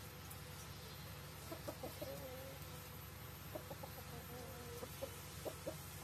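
Young rooster clucking: from about a second and a half in, a run of short low clucks with two drawn-out wavering notes, and a few more short clucks near the end.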